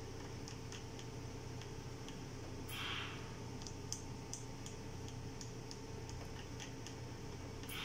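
Mindray SV600 mechanical ventilator running, with a steady hum and a string of light irregular ticks. A short hiss of air comes about three seconds in and again near the end, about five seconds apart, one for each breath cycle.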